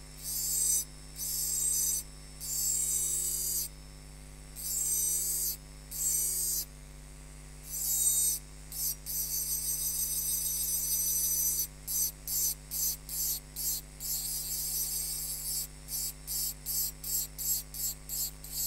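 Diamond burr in a handheld rotary engraving drill grinding into a wine glass kept wet by a water drip: a high, gritty hiss in short strokes, with a longer stretch of steady cutting in the middle and quick strokes about twice a second near the end. Under it, the steady hum of the running drill motor.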